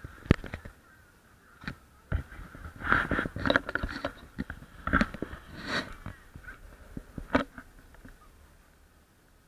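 Irregular knocks and short rustling scrapes of a handheld camera being moved and handled. The sharpest knocks come just after the start and about seven seconds in, with a dense patch of rustling in the middle.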